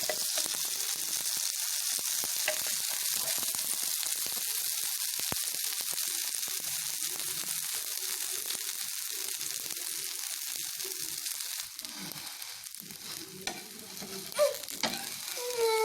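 Chicken kari dosa sizzling in oil on a hot pan just after being flipped: a steady frying hiss that eases a little about three-quarters of the way through, with a few short clicks near the end.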